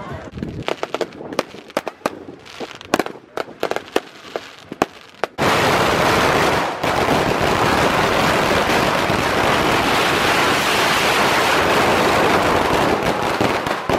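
Scattered sharp firework bangs at first. About five seconds in, a long string of red firecrackers (an Aruban New Year's pagara) starts exploding as a dense, unbroken rattle of rapid bangs.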